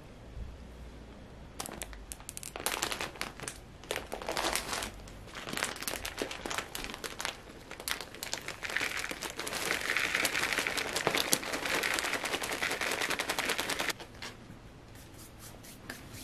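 Plastic bag of houseplant potting soil crinkling and crackling as loose soil is poured from it into a plant pot, in uneven bursts that thicken into a steady pour, then stop abruptly a couple of seconds before the end.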